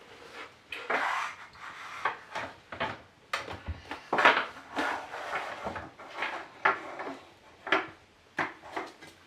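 Small plastic doll-house accessories being handled: irregular clicks, knocks and brief scrapes as pieces are moved and set in place.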